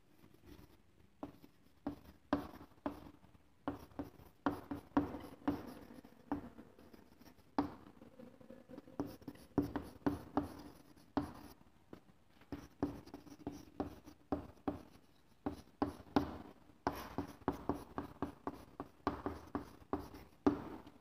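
Chalk writing on a blackboard: a long run of short, irregular taps and scratches as the letters are stroked out, with brief pauses between words.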